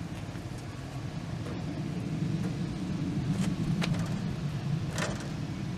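A few sharp knocks and clunks from a heavy steel rolling tool box being shifted into place, over a steady low rumble.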